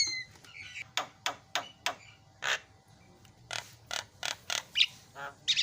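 Javan myna (jalak kebo) chattering: about a dozen harsh clicks and rasping notes, unevenly spaced, with a few short whistled notes near the end.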